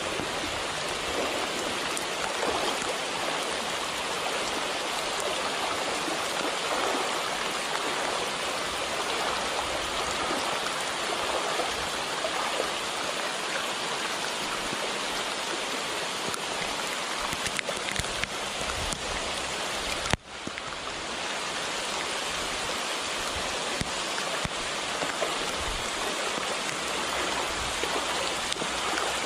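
Heavy rain pouring down onto a shallow river, mixing with the rush of the flowing water into a steady hiss. About two-thirds of the way through, a single sharp click with a momentary dip in the sound.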